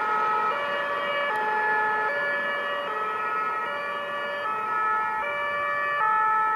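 German two-tone emergency siren (Martinshorn) on a car with a roof-mounted blue light, alternating between a high and a low note, switching about every three quarters of a second.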